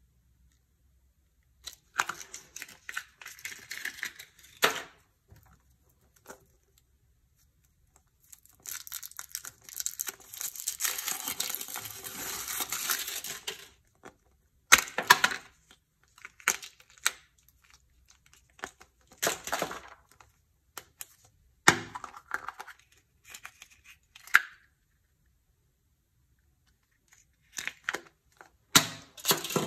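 Foil wrapper of a Chupa Chups chocolate surprise ball crinkling and tearing as it is peeled off, with a long stretch of steady crinkling in the middle. Sharp cracks and clicks follow as the hollow chocolate shell is broken and the plastic toy capsule is handled, and there is more crinkling near the end.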